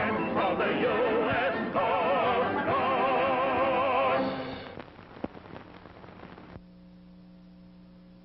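Closing title music of a 1940s film, a full swelling passage with wavering held notes, fading out about four seconds in. After a stretch of faint crackle, a quiet steady hum sets in from the soundtrack.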